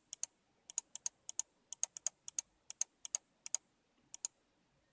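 Mionix Naos 7000 gaming mouse's right button clicked repeatedly, about a dozen sharp press-and-release click pairs at an irregular pace. This button sounds normal and serves as the reference for the left button, which is suspected of a defect.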